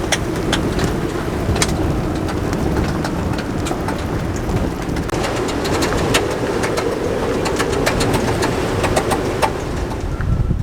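Storm-force wind blasting across an anchored sailboat, buffeting the microphone with a heavy rumble, scattered through with frequent sharp ticks.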